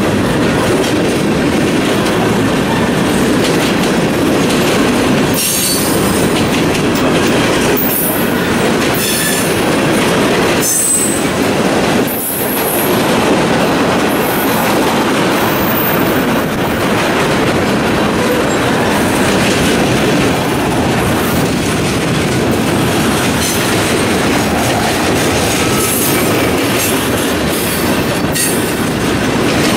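Freight cars rolling past at close range: a steady loud rumble and clatter of steel wheels on the rails, with a few brief high wheel squeals.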